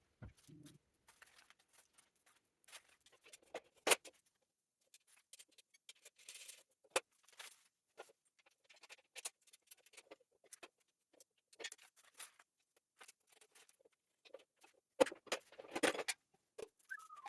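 Light clicks, taps and clatter of metal welding-cart parts and hardware being handled and fitted together during assembly, with a sharper knock about four seconds in and a burst of louder clattering near the end.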